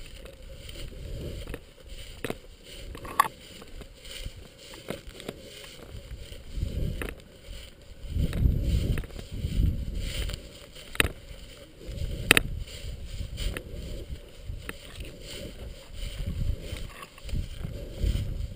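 Muffled handling noise from a camera held by a lioness: her fur rubbing over the microphone in low rumbling surges, with a few sharp clicks and knocks on the camera body.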